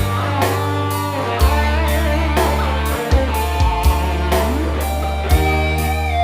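Campursari band music: a lead guitar melody with wavering notes over a steady bass line and a drum beat of about two strokes a second.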